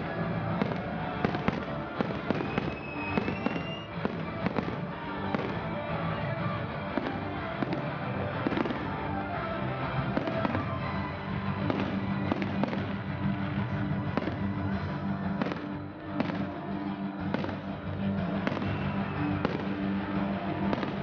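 A salute fireworks display with shells bursting in frequent, irregular bangs, over music playing throughout.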